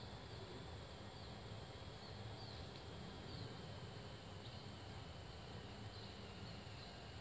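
Faint outdoor ambience: a steady high-pitched insect drone, with a few short high chirps and a low rumble underneath.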